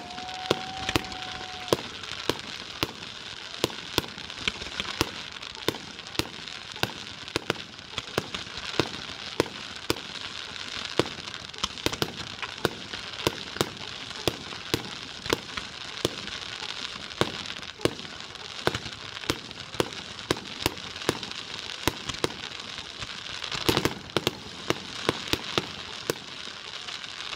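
Aerial fireworks display: a continuous run of shell bursts, about one or two bangs a second, over a steady crackle of glittering effects. A steady whistle sounds for about the first two seconds.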